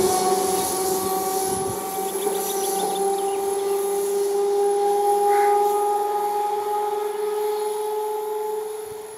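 Electric multiple unit train running under power: a steady whine that slowly rises in pitch, fading near the end.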